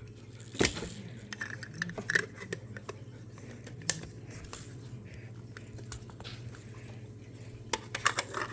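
Small plastic clicks and taps from fidget-cube pieces being handled and fitted onto the cube, with a sharper knock just after the start and a quick cluster of clicks near the end.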